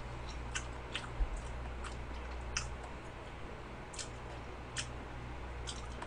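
Quiet close-miked chewing of soft cheesecake: a handful of scattered wet mouth clicks and lip smacks, irregularly spaced, over a low steady hum.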